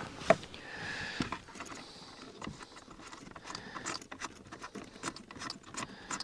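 Small hand-handling noises from fitting the USB charging port into the truck's plastic console panel: one sharp click a quarter second in, then a run of light, irregular ticks and taps.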